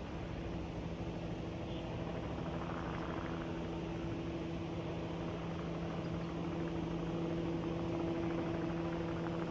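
Steady machine hum with two held low tones over a haze of noise, and a soft swell of higher noise about three seconds in.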